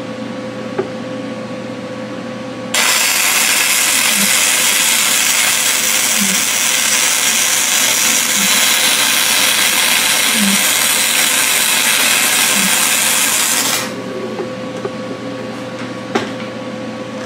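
Flux-core MIG welding arc from a Vulcan Omnipro 220 welder sizzling steadily on mild steel, starting about three seconds in and cutting off suddenly some eleven seconds later. A steady hum is heard before and after the arc.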